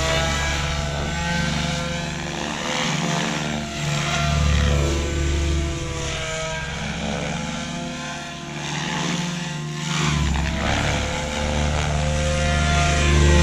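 Electric SAB Goblin 630 RC helicopter flying freestyle at a 2,000 rpm head speed: a steady rotor and motor whine whose pitch slides up and down. It swells near the start, dips about eight seconds in, and grows loud again near the end as the helicopter manoeuvres and passes.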